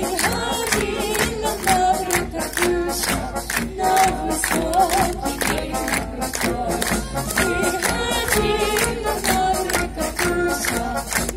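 Military brass band of brass and saxophones, with sousaphones on the bass, playing a Russian song with a steady drum beat.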